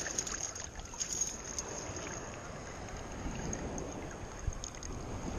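Steady sloshing of shallow water around a wading person's legs and a metal detector's search coil.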